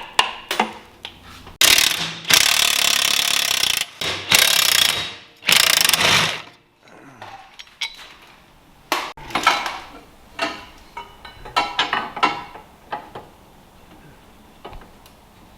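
Ratchet wrench clicking in three runs of a second or two as the 14 mm bolts of a car's underbody brace are worked loose, followed by scattered clicks and taps of tools and metal parts.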